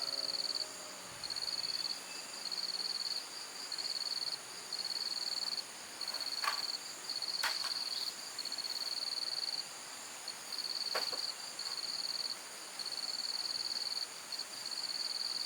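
Crickets trilling in repeated bursts about a second long with short gaps, over a steady high insect hum, with a few faint sharp clicks.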